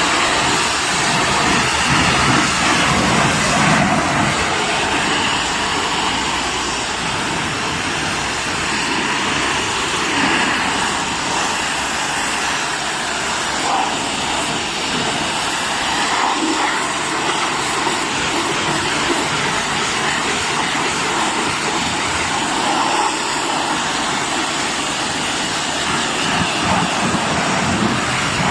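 High-pressure washer running and spraying, a steady loud hiss of the water jet over the machine's running noise.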